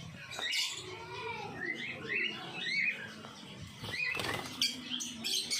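African lovebirds chirping and squawking in many short rising-and-falling calls, with a few sharp knocks in between.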